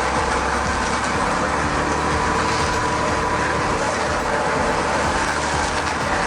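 Heavy vehicle running steadily, a dense even mechanical noise with no sudden changes.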